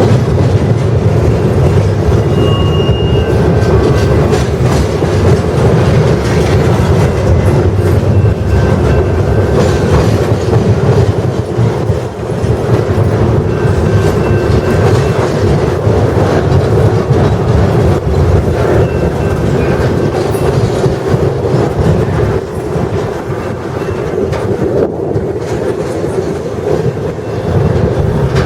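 Freight train cars rolling past at close range, wheels clattering steadily over the rail joints, with a few short, high wheel squeals here and there.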